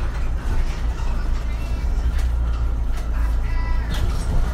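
MAN Lion's City Hybrid city bus heard from inside by the front door: a steady low drone from the drivetrain with scattered clicks and rattles. A brief higher tonal sound comes about three and a half seconds in.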